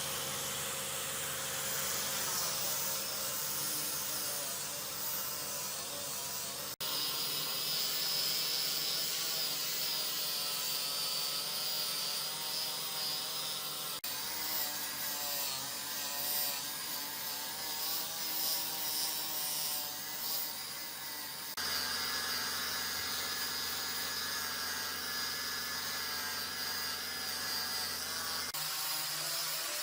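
Electric power tools working wood, giving a steady motor drone with a few level tones. The sound changes abruptly four times, about every seven seconds.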